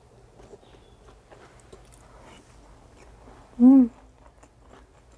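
Quiet eating sounds: chewing and small mouth and finger noises as food is taken by hand. About three and a half seconds in comes one short, loud hummed vocal sound from the eater, rising then falling in pitch.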